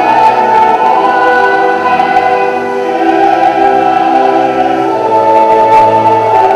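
Choral singing with long held notes.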